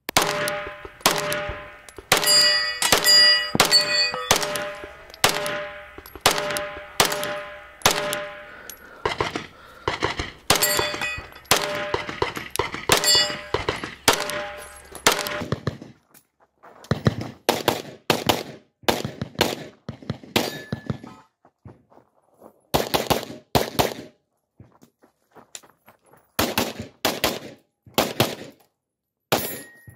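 Glock 17 9mm pistol fired in quick strings of shots, often in pairs, with short pauses between strings. Many of the shots are followed by a metallic ringing clang.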